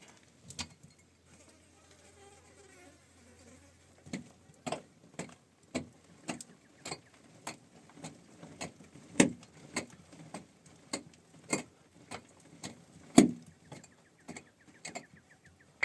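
A series of sharp knocks, about two a second, starting about four seconds in, with two much louder strikes, one about nine seconds in and one near the end, typical of hand-tool work during building.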